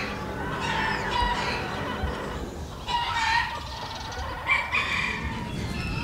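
Domestic chickens, a rooster among them, calling in several short runs of pitched calls spaced a second or two apart.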